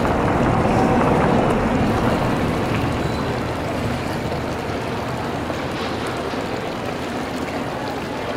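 City street noise with a red articulated bus passing close and pulling away, its rumble loudest in the first two seconds and then easing into a steady wash of traffic and street sound.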